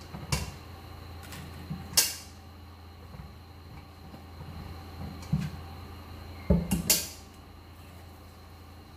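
Saba bananas being handled in a metal cooking pot. A few sharp clanks against the pot ring on briefly, the loudest about two seconds in and just before seven seconds, with softer bumps between.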